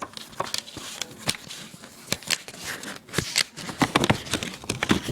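Hands handling CD album packaging: a run of irregular clicks and rustles as a booklet is worked out of its case.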